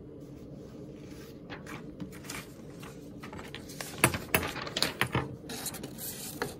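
Hands handling paper and cardboard while a printed backdrop sheet is swapped: scattered clicks and rustles, loudest and densest about four to five seconds in, over a steady low hum.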